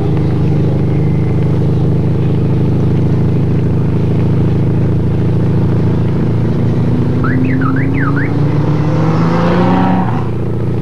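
Motor vehicle engine running steadily close by. A few seconds after the middle it rises in pitch as it speeds up, then drops back near the end.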